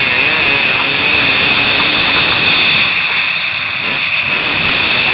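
Motocross dirt bike engine revving up and down as it is ridden, heard through a helmet camera's microphone under heavy wind rush. The engine eases off about three seconds in.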